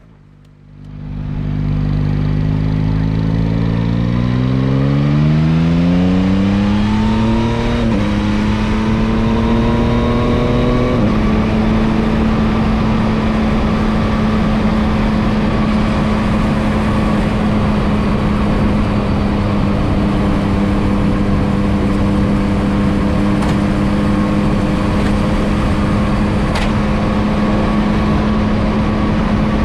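Yamaha MT-09's inline three-cylinder engine accelerating hard, rising in pitch through the gears with upshifts about 8 and 11 seconds in, then holding a steady pitch at cruising speed, with wind rushing past the rider.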